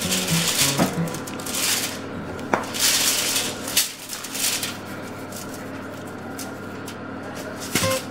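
Aluminium foil crinkling and rustling in repeated short bursts as hands rub seasoning into a whole carp and move it about on the foil.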